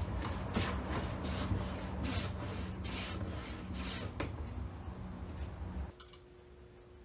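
An Abohr No. 4 hand plane shaving wood in quick rasping strokes, about two a second, over a low hum. The strokes stop a little after four seconds and the hum cuts off near the end.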